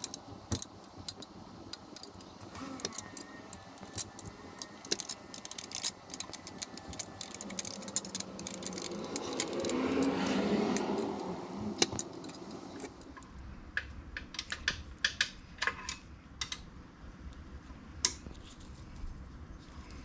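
Metal-on-metal clicks and light taps of an Allen key turning and being reset in a bolt head on a steel bike-rack frame, scattered irregularly. A broad rush of noise swells and fades about ten seconds in.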